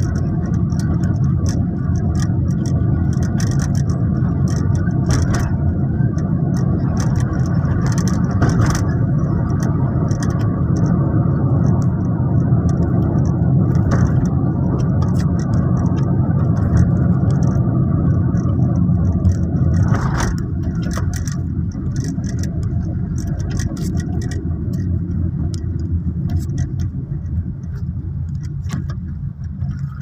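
Steady low engine and road rumble heard from inside a moving car's cabin, with scattered light clicks and rattles. The rumble eases a little about two-thirds of the way through.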